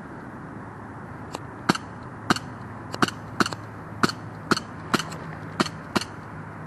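Airsoft rifle firing single shots: about ten sharp cracks roughly every half second, starting a little over a second in, over a steady low hum in the background.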